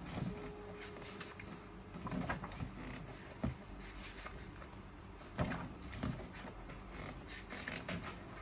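Pages of a large glossy photo book being turned and smoothed flat by hand: a series of stiff paper swishes and rustles, with a sharper page slap about five seconds in.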